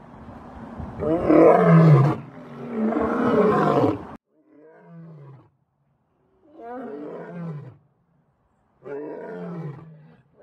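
Male lion roaring: two long, loud roars in the first four seconds. After an abrupt cut come three shorter, quieter roars, each falling in pitch.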